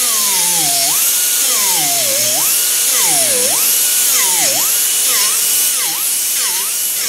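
Small hand grinder with a sanding disc grinding damaged fiberglass out of a boat hull back to solid laminate. Its high whine drops in pitch each time it is pressed into the glass and climbs back as it is eased off, about seven times, over a steady hiss.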